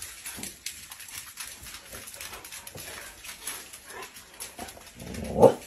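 Dog claws ticking faintly on a laminate floor, then about five seconds in a dog gives one short, loud whine that rises and falls in pitch.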